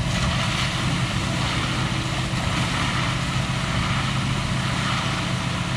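Heavy truck diesel engine running steadily: the drive of the concrete pump truck or the ready-mix truck during a concrete pour.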